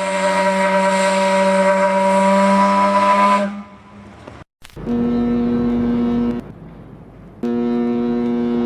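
A ship's steam whistle blowing one long, hissing blast of about three and a half seconds. After a short break, a ship's horn sounds two steady blasts of about a second and a half each, a little higher in pitch.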